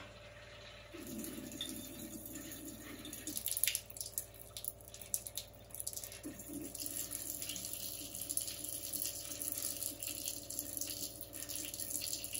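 A reverse osmosis drinking-water faucet running a thin stream of water into a kitchen sink basin, starting about a second in and then splashing steadily. New RO filters are being flushed before the water is drunk.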